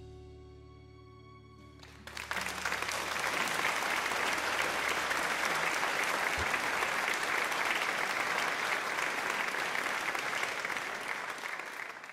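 A held music chord, then about two seconds in, applause that takes over and carries on steadily, starting to fade near the end.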